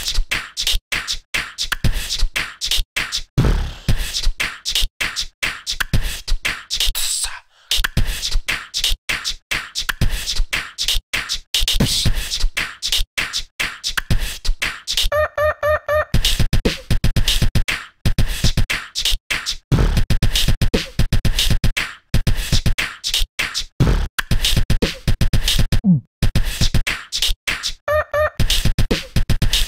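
Music with a fast, dense beatbox-style percussive beat, dropping out briefly about seven seconds in; short repeated pitched notes come in around fifteen seconds and again near the end.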